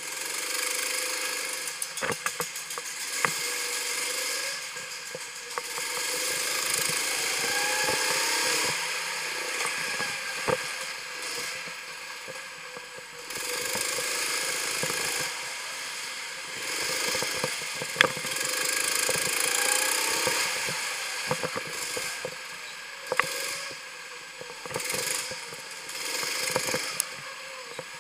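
Go-kart engine running under way, its note swelling and fading as the kart accelerates and lifts off, rising in pitch twice. Scattered sharp knocks and rattles come over it.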